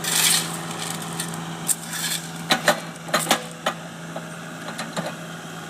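Backhoe engine running steadily, with scattered sharp clanks and knocks about every second.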